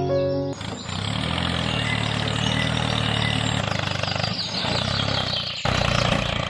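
An engine running steadily with a low, even hum, then a sudden change near the end to a different engine-like background noise.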